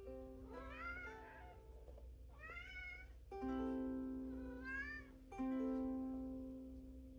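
A ukulele strummed in slow single chords, each left to ring, about two seconds apart, while a domestic cat meows along three times, each meow bending up and down in pitch.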